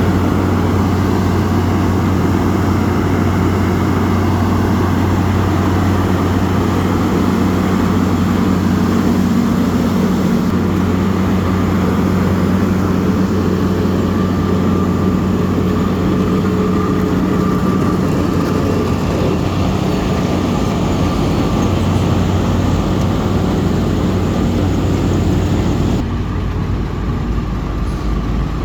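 Asphalt road milling machine running: a loud, steady heavy engine drone with a constant low hum. Near the end the higher hiss drops away a little.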